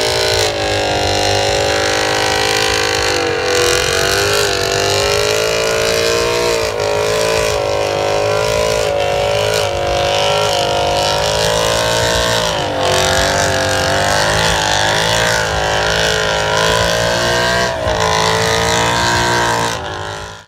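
Car engine held at high revs through a burnout, its pitch wavering up and down as the throttle is worked, with the rear tires spinning in a cloud of tire smoke. The sound cuts off suddenly at the end.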